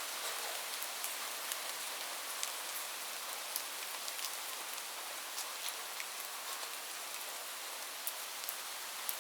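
Steady rain falling on a hard surface: an even hiss with many separate drops ticking sharply over it.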